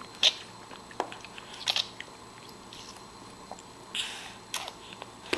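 Jackfruit being bitten and chewed: a few short, crisp crunching bites a second or so apart, with a pause in the middle.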